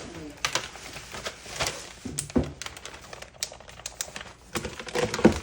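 An irregular series of sharp clicks and taps, a few a second, with a louder cluster of knocks just before the end.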